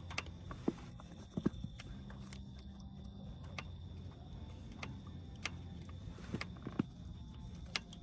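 Light clicks and knocks of cooking utensils at irregular intervals, over a low steady hum.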